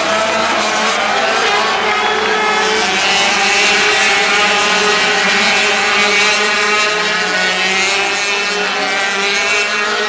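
Several 250cc two-stroke Grand Prix racing motorcycles passing at high revs, their overlapping engine notes shifting up and down in pitch, loudest around the middle.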